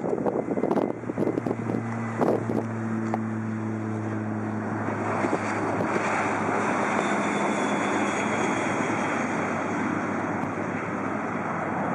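Canadair CRJ-700 regional jet landing: steady jet engine noise with a high turbine whine coming in about five seconds in, and wind buffeting the microphone.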